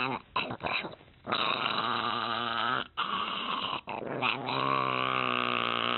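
A dog 'talking': a few short sounds, then two long, wavering growl-howls of about a second and a half each.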